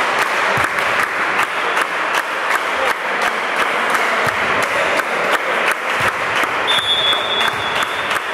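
Spectators clapping fast and evenly, about four claps a second, over a steady wash of crowd noise. Near the end a referee's whistle sounds one steady high note for about a second and a half, the signal authorising the serve.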